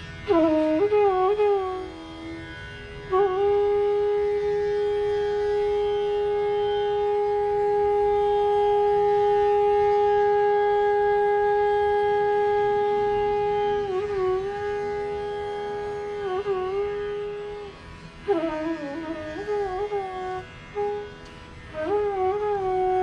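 Bansuri (Indian bamboo flute) playing raag Yaman: a few short ornamented phrases, then one long held note of about ten seconds, followed by more short phrases with glides and grace notes.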